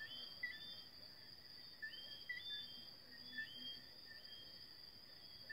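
Faint nighttime insect chorus: a steady high-pitched trill, with short whistled chirps repeating about every second.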